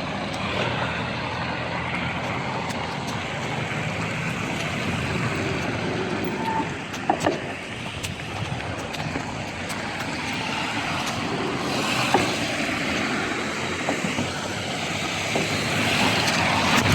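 Steady road-traffic noise on a wet road in heavy rain, with louder swells as vehicles pass about twelve seconds in and again near the end.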